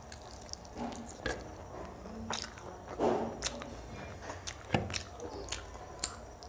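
Close chewing and mouth sounds of a person eating fried chicken: irregular wet smacks and short clicks, a few louder ones around the middle.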